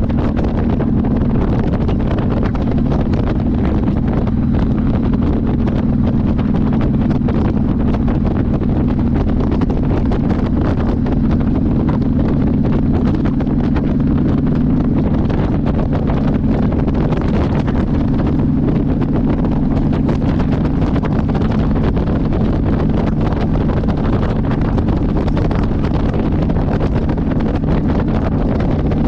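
Motorcycle engine running at a steady cruise, with wind rushing over the microphone.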